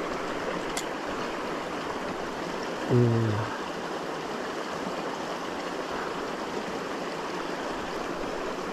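Steady rush of flowing river water where inlet currents run into the pool. About three seconds in comes a brief low hum, the loudest moment.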